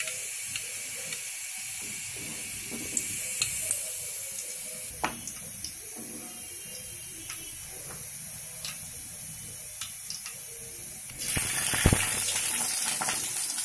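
Dried red chillies sizzling gently in hot oil in a karahi, with scattered small ticks. About eleven seconds in the sizzle jumps much louder as green chillies and sliced onion go into the oil, with a sharp tap.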